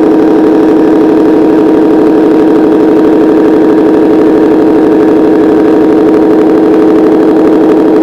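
Loud, steady mechanical drone of shop machinery, an unchanging hum.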